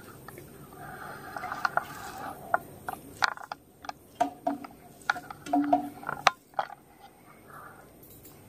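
Close-miked eating by hand: fingers mixing rice and fish curry on a metal plate, and open-mouthed chewing. It comes as a run of sharp wet clicks and smacks with a few short squelches.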